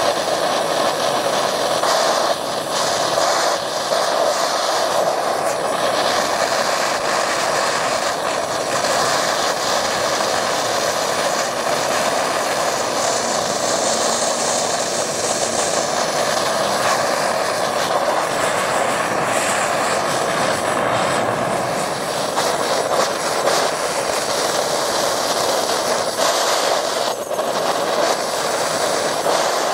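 MAPP gas hand torch burning steadily, its flame played into a casting crucible to melt scrap gold.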